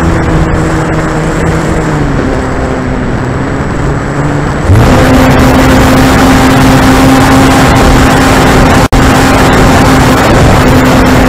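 Electric motor and propeller of an E-flite Corsair RC plane, heard through a camera mounted on the plane: a steady motor whine under heavy wind rush. About halfway through, the noise suddenly gets louder and harsher, and near the end it cuts out for an instant.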